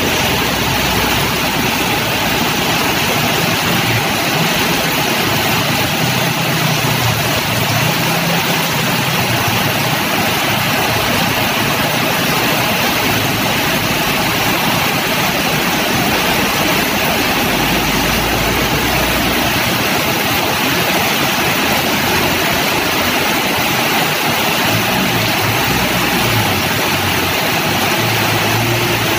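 Heavy rain pouring steadily, with the engines of trucks and cars passing through floodwater about 20 cm deep on the road.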